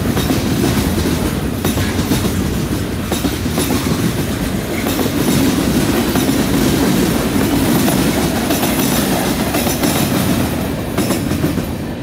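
Freight cars rolling past close by: steel wheels clattering over the rail joints over a steady rumble, easing off slightly near the end.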